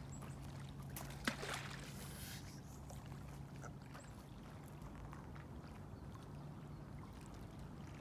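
A thrown stone striking lake water, a sharp click and a short splash about a second in, over faint water lapping at a pebble shore and a steady low hum.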